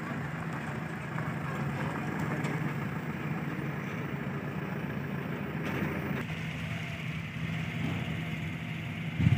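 An engine running steadily at idle, a constant low hum, with a short knock near the end.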